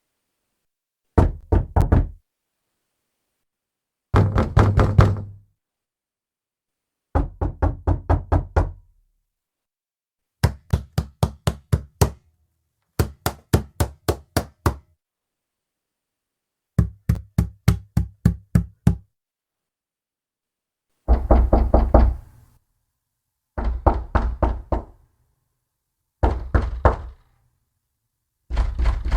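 A fist knocking on a wooden door in about ten separate runs of rapid knocks, three to seven in each, with brief silences between the runs.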